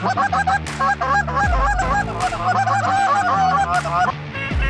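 A rapid run of goose honks and clucks, many short calls close together, which stops about four seconds in.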